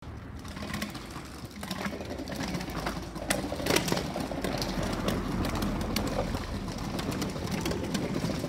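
A small group walking on asphalt pavement: scattered footsteps, clicks and knocks over a low steady rumble.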